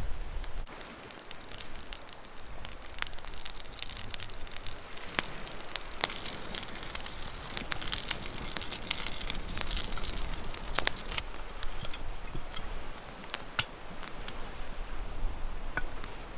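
Wood campfire crackling with scattered sharp pops. Midway there are a few seconds of hissing as salt is sprinkled over grilled corn in a cast iron pan.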